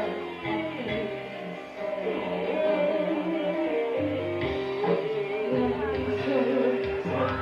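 Dangdut band music played live, with guitar carrying a melody over a steady bass line.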